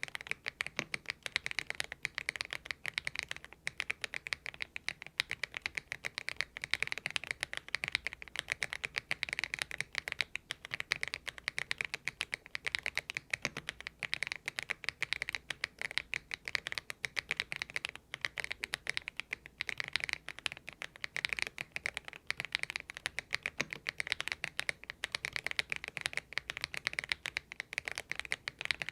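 Continuous rapid typing on a Thinkway TV108 mechanical keyboard fitted with stock, unlubricated Kailh Box Aurora Ice Cream switches: many keystrokes a second with no pauses.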